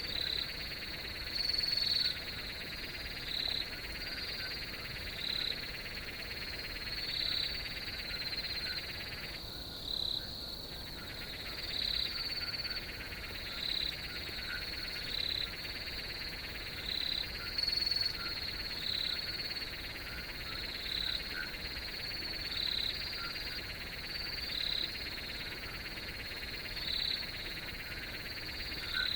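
Night chorus of crickets: a steady high trill with short, higher chirps repeating about every second and a half. The steady trill drops out for about a second around ten seconds in.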